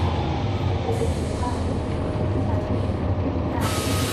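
Cummins ISL9 diesel engine of a NABI 40-SFW transit bus, heard from on board, running with a steady low drone. Near the end a sudden hiss starts, together with a steady high-pitched tone.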